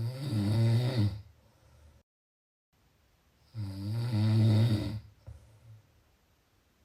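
Snoring: two long, low snores about three and a half seconds apart, each lasting a second or more.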